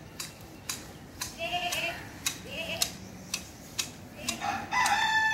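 Hand hedge shears snipping leafy hedge branches, a sharp click about twice a second. Chickens call in between, and a rooster starts crowing near the end, the loudest sound.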